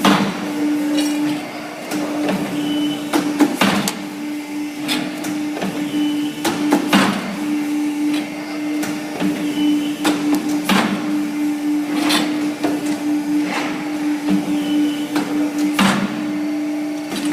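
Pipe bending machine running: a steady motor hum with sharp clacks and knocks repeating every second or so.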